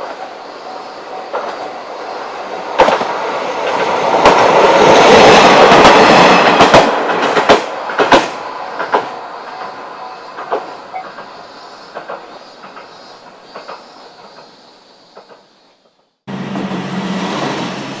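Diesel railcar passing over a level crossing: the rumble swells to its loudest a few seconds in, with a run of sharp wheel clicks over the rail joints, then fades away. Near the end, after a break, a diesel railcar engine runs with a steady low hum.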